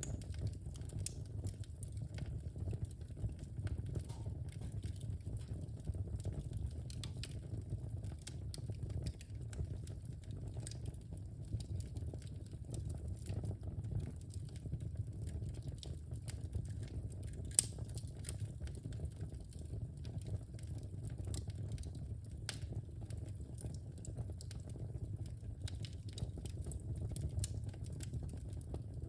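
Wood fire burning in a fireplace: a steady low rumble with scattered small crackles and one sharper pop a little past halfway.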